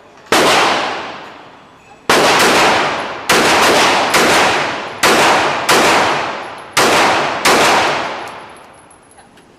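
Gunshots at a shooting range: about eight to ten single shots, irregularly spaced, each with a long echoing tail.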